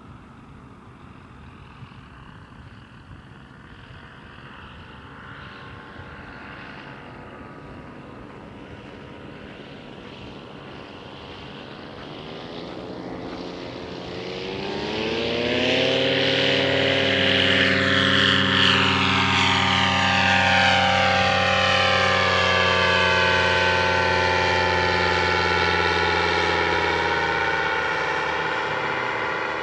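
Paramotor engine and propeller flying past: faint at first, then growing loud about halfway through as it nears, rising in pitch, and settling into a steady drone whose tone keeps shifting as it passes.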